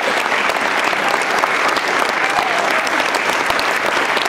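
Applause: a crowd of people clapping steadily at the end of a stage performance.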